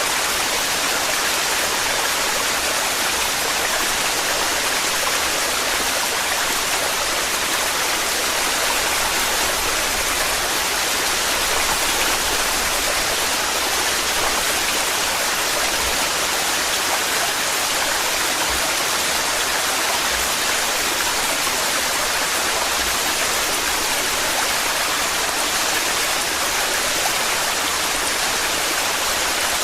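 A torrential waterfall pouring, a steady unbroken rush of falling water.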